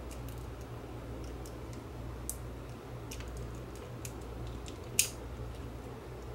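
Small plastic clicks and light ticking as a screwdriver pries at the clip-together housing of a clock's projector module, with one sharp snap about five seconds in, over a steady low hum.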